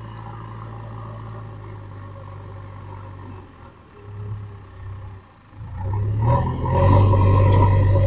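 JCB 3DX backhoe loader's diesel engine running as the machine drives up: a steady low drone that fades briefly around the middle, then grows much louder over the last two seconds as it nears.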